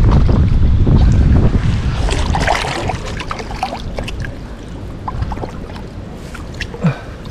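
Wind buffeting the microphone as a low rumble, loudest in the first two seconds and then easing. Light rustling and small clicks follow as the wearer kneels and shifts on the grass.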